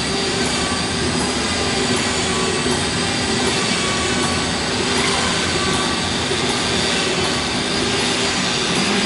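LDPE plastic bag sealing and cutting machine running: a steady, dense mechanical noise with a constant hum and a thin high whine over it.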